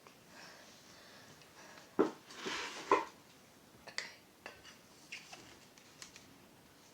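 Plastic vacuum-cleaner parts being handled and fitted together: two sharp knocks about two and three seconds in with a brief scrape between them, then several lighter clicks and taps.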